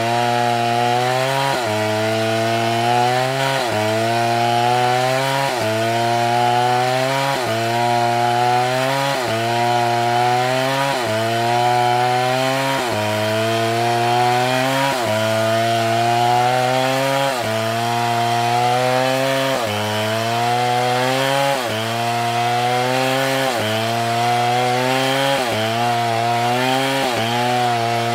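Large STIHL two-stroke chainsaw cutting through a palm trunk at full throttle. The engine pitch sags under load and picks up again in a steady rhythm about every two seconds as the chain bites into the wood.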